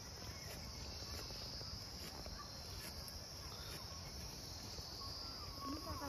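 Insects chirring in a steady, high, unbroken drone over faint outdoor rumble.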